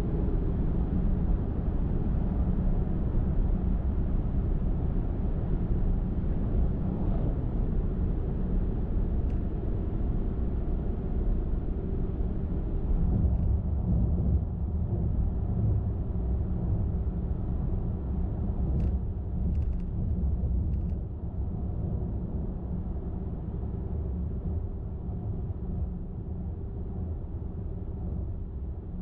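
Car driving on a highway: steady low tyre-and-road rumble with engine hum. It grows gradually quieter over the last third, with a few faint clicks in the middle.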